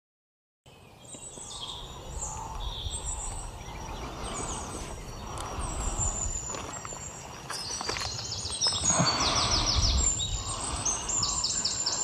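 Outdoor nature ambience: many birds chirping and calling over a steady background hiss and low rumble, beginning after a brief silence. Twice, about seven and a half seconds in and again near the end, a bird gives a quick run of rapidly repeated high notes.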